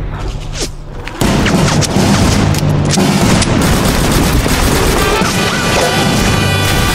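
Action-film soundtrack: music under volleys of gunfire and booms, getting much louder about a second in.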